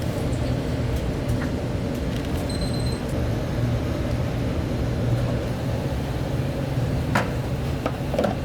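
A steady low mechanical hum and rumble, with a short high beep about two and a half seconds in and a few sharp clicks near the end.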